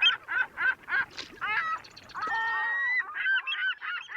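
Birds honking, likely waterfowl: a fast run of short honks about three a second, then a few longer drawn-out calls in the middle, then a jumble of shorter calls growing fainter toward the end.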